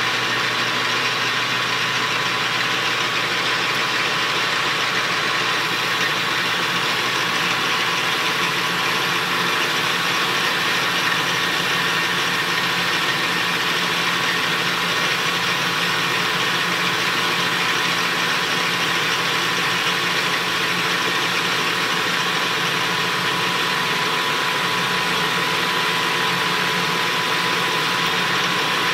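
Metal lathe running steadily while turning the outside of an aluminum bar. Its drive gives an even hum with a couple of steady higher tones.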